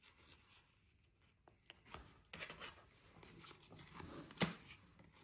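Baseball trading cards being thumbed through by hand, glossy cards sliding and rubbing against each other in a soft rustle that starts about two seconds in, with one sharp click near the end as a card snaps against the stack.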